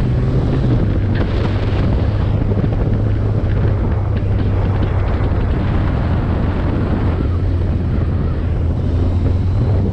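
Vehicle engine running at a steady low drone while under way, with heavy wind noise buffeting the microphone.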